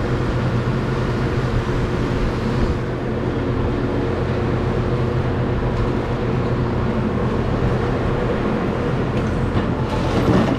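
Scrapyard machinery running with a steady low drone and a constant hum. A short rattle of scrap metal being handled comes near the end.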